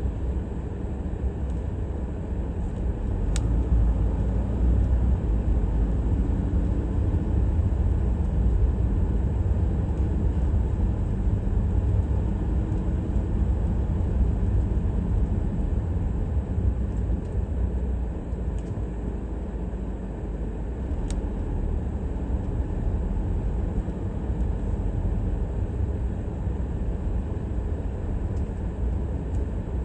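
A car driving, heard as a steady low rumble of engine and road noise, with two brief clicks about 3 seconds in and about 21 seconds in.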